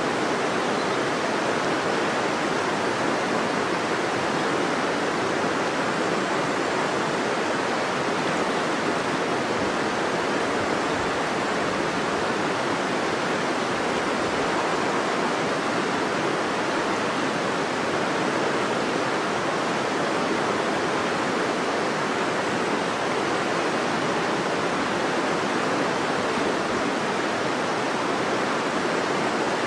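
River water flowing in a steady, unbroken rush.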